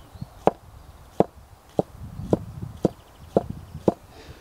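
A forged chopper knife slicing a cucumber, its blade knocking down onto a wooden chopping block with each cut. There are seven chops in a steady rhythm, about two a second.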